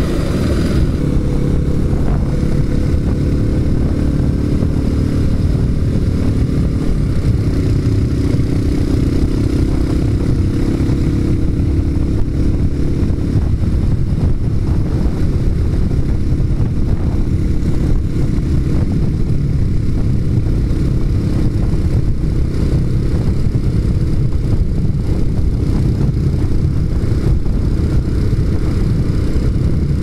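Motorcycle engine running while riding at road speed, its note climbing gently over the first dozen seconds and then holding steady, under a heavy low rumble of wind and road noise on the bike's microphone.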